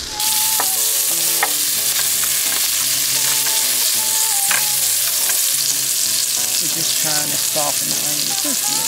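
Sliced smoked sausage and chopped onion sizzling loudly in a hot oiled frying pan, with occasional sharp clicks and pops as the pieces are turned with tongs. The sizzle jumps louder a moment in, just after the onions go in.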